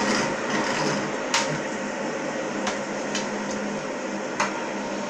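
Fidget spinners spinning with a steady whir, broken by four sharp clicks, the first and last loudest.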